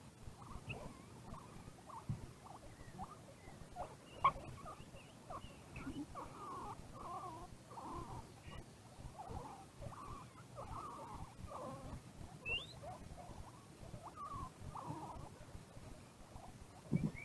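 Guinea pigs making many soft, short squeaking calls, scattered irregularly. There is a sharp click about four seconds in and a low thump near the end.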